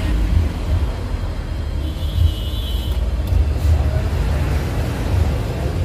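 Hydraulic hose crimping machine's electric motor and oil pump running with a steady low hum while its dies crimp a hydraulic hose fitting.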